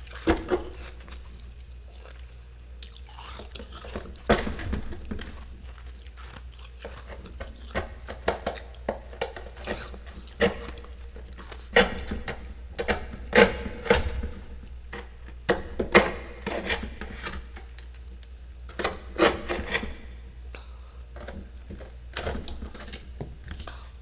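Metal spatula scraping and crunching through packed freezer frost in irregular strokes, some in quick clusters, over a low steady hum.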